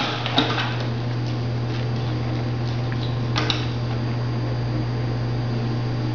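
Steady low mechanical hum in a small room, with a few light taps: one at the start, another just after, and a third about three and a half seconds in.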